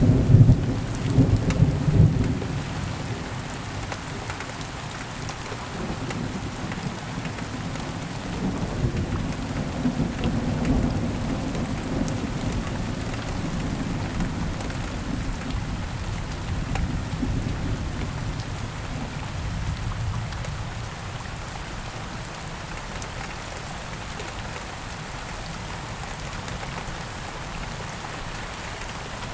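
Thunderstorm: steady rain with low rolling thunder, loudest in the first couple of seconds and swelling again about a third of the way through.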